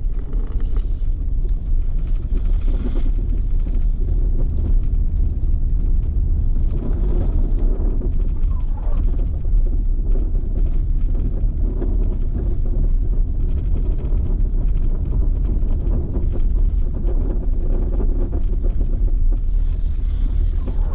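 Steady low rumble of a vehicle driving, with a few brief swells of higher hiss.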